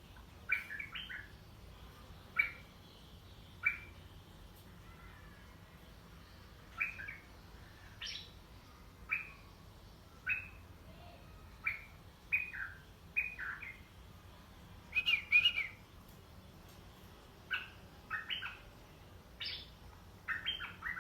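A merbah lekir bulbul kept as a decoy bird, calling: short, sharp chirps repeated at irregular intervals of about a second, with a louder quick cluster of notes about 15 seconds in.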